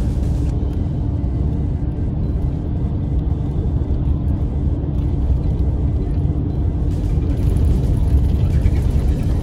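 Highway bus in motion, heard from inside the cabin: steady low engine and road rumble.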